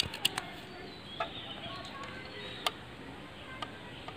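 Scattered sharp clicks and taps of a metal tool handled against the cylinder head of a portable car tyre-inflator air compressor, the loudest right at the start, with birds chirping faintly behind.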